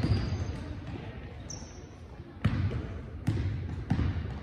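Basketball dribbled on a sports-hall floor: three bounces about two-thirds of a second apart in the second half, with a short sneaker squeak about a second and a half in.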